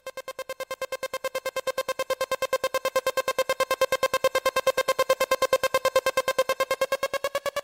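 Electronic music sting: a single synthesizer tone pulsing rapidly and evenly, about ten pulses a second, swelling up, then rising slightly in pitch near the end as it fades.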